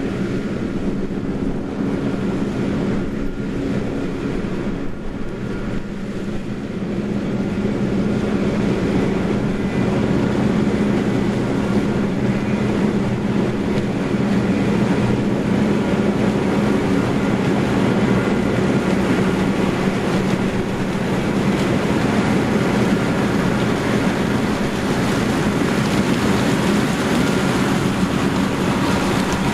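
Large diesel harvest machinery running steadily under load, growing somewhat louder about seven seconds in.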